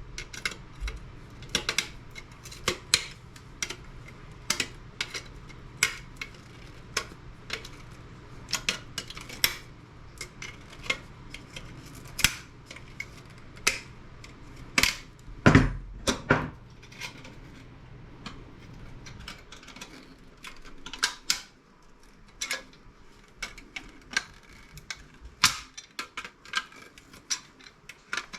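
Irregular clicks, clinks and knocks of hand tools and small metal and plastic parts being handled as a CRT monitor component is taken apart for scrap, with a louder knock at the start and another about halfway through. A faint low hum underneath stops about two-thirds of the way in.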